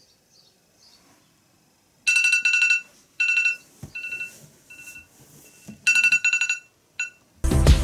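Smartphone alarm ringtone sounding in repeated bright trilling bursts, some loud and some softer, starting about two seconds in. Near the end, loud music with a steady beat cuts in over it.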